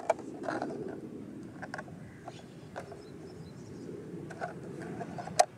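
Steady low outdoor rumble with scattered light clicks and taps, and one sharper click near the end. There is no motor or rotor sound.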